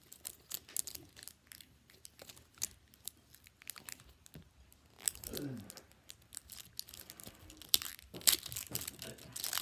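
Toy packaging being torn open and crinkled by hand, with irregular sharp crackles and clicks throughout and the loudest rips near the end. A short falling tone sounds about halfway through.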